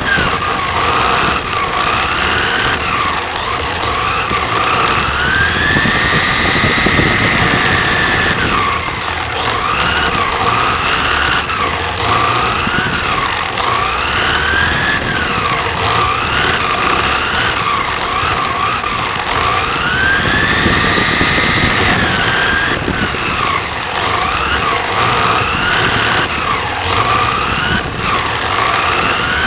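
Drivetrain whine of a 1/10-scale Associated TC4 RC touring car with a brushless electric motor, heard from onboard as it laps. The pitch rises and falls through the corners and twice climbs and holds high for a few seconds on the straights.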